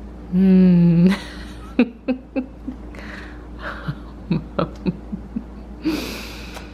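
A woman's drawn-out "mmm" of approval, then a toddler's wet lip smacks and mouth clicks as he eats with his fingers in his mouth, and a breathy puff near the end.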